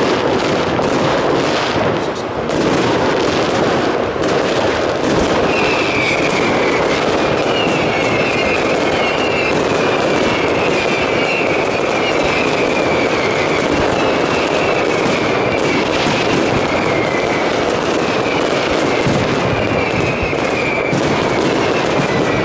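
Fireworks display going off in a dense, continuous barrage of bangs and crackling. From about six seconds in, a high tone falls again and again, roughly once a second.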